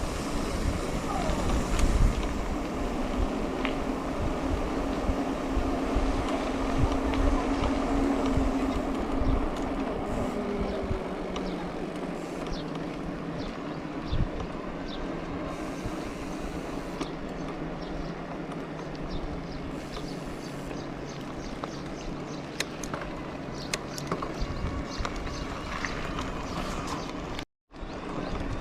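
Steady wind and rolling noise of a bicycle ride, with scattered clicks and rattles and a low steady hum. The sound cuts out briefly near the end.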